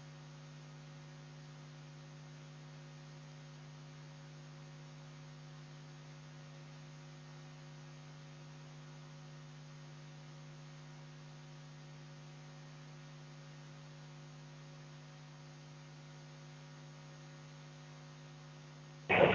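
Faint, steady electrical mains hum: one low tone with a few weaker higher tones, unchanging throughout.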